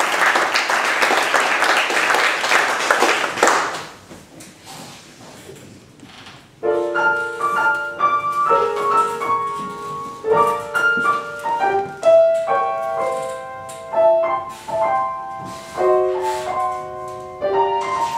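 Audience applauding for about four seconds, dying away. Then, about six and a half seconds in, a piano starts playing, a slow line of struck notes and chords.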